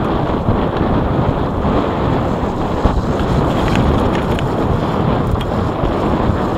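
Wind rushing over the microphone of a camera on a mountain bike riding a dirt forest trail: a loud, steady rush, with a few faint clicks about three to four seconds in.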